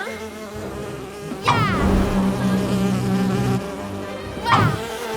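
Cartoon soundtrack: a steady buzzing drone, with two quick high squeaky swoops falling in pitch, about a second and a half in and again near the end.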